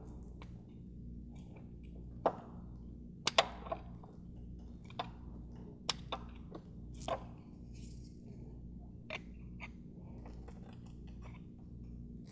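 Flathead screwdriver prying up the metal locking tabs on a nut: scattered sharp metallic clicks and taps, about eight in all, over a steady low hum.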